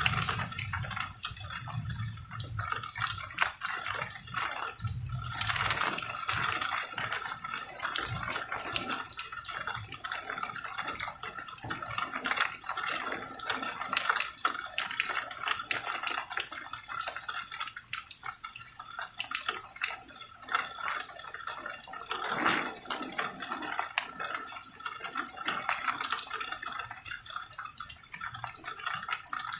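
Rain falling, with many close drops dripping and pattering irregularly. A low rumble sits under the rain for the first few seconds and then fades.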